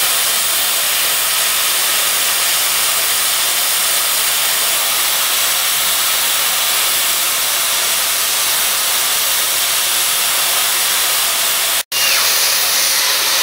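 Steam blowing off from the safety valves of LB&SCR Terrier tank engine No. 672 Fenchurch: a loud, steady hiss with no beat. It cuts out for an instant near the end, then carries on.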